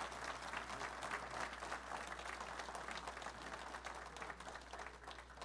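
People applauding, a steady patter of many hands clapping that begins to taper off near the end.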